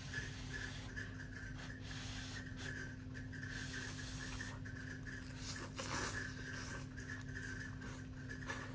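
Slurping and chewing of instant ramen noodles drawn up from metal chopsticks, with louder slurps about five and a half to six seconds in and again near the end. A steady low hum sits underneath.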